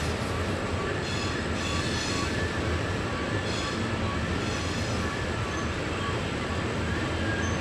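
Long Norfolk Southern coal train rolling past: a steady rumble of wheels on rail, with faint high wheel squeals coming and going on the curve.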